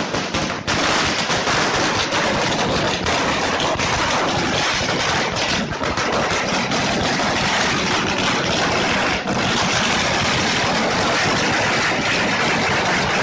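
A long string of firecrackers laid along the road bursting in rapid, unbroken succession: a dense, loud crackle of small bangs.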